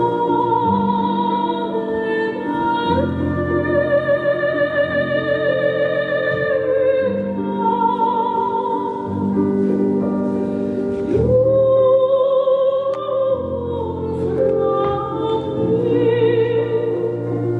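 Slow classical music: an operatic voice holds long notes with a wide vibrato, moving slowly between pitches over a sustained low accompaniment.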